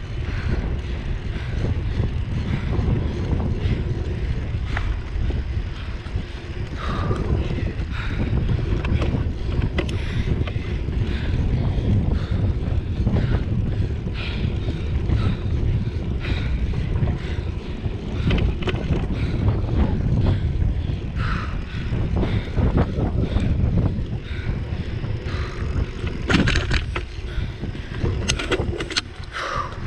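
Wind noise on a bicycle-mounted camera's microphone and the rumble of the bike rolling along a paved lane, with occasional sharp clicks and rattles, several of them close together near the end.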